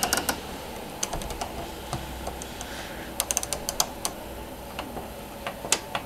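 Plastic programme selector dial of a Hotpoint washer-dryer clicking through its positions as it is turned by hand. The clicks come in short quick runs, with a few single clicks near the end.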